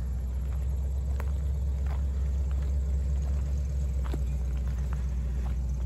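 Steady low rumble of a motor vehicle engine running, with a few faint clicks.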